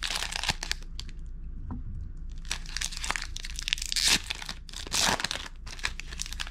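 Plastic wrapper of a football trading-card pack being torn open and crinkled in the hands, with crackling throughout and two louder rips about four and five seconds in.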